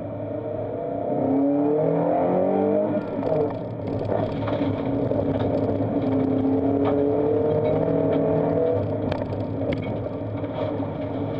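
Subaru Impreza's flat-four boxer engine heard from inside the car, revving hard under acceleration; its pitch climbs, dips briefly about three seconds in as it changes gear, then climbs slowly again. Loose gravel ticks sharply against the car's body.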